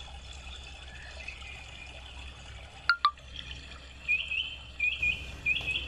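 Small birds chirping: a quick series of short, high chirps in the second half. Two sharp clicks about halfway through stand out as the loudest sound, over a low steady hum.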